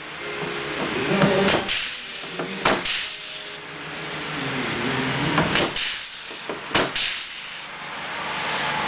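Pneumatic rivet gun setting aluminum rivets into a steel panel: several short, sharp bursts a second or more apart, each the gun's air stroke as a rivet is pulled and set.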